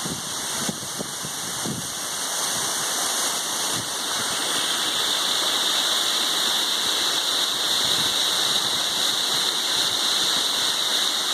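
Waterfall rushing: a steady hiss of falling water that grows a little louder and brighter a few seconds in.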